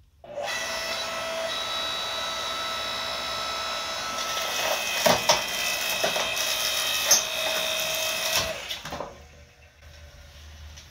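Yardworks 6.5-ton electric hydraulic log splitter starting up and running with a steady whine as its ram presses electric motor stators against the wedge. Several sharp cracks come about five to seven seconds in as the stators start to split and shift, and the motor stops about nine seconds in.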